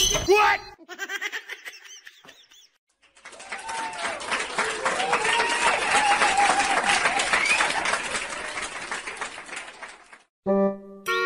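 Indistinct voices over a dense, crackly background noise, starting about three seconds in and stopping about ten seconds in.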